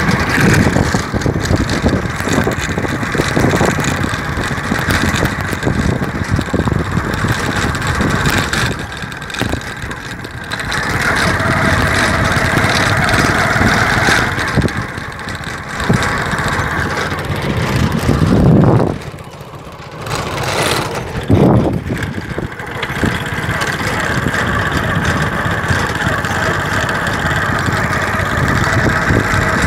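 Motor vehicle engine running steadily while riding along a dirt road. The loudness drops briefly about two-thirds of the way through.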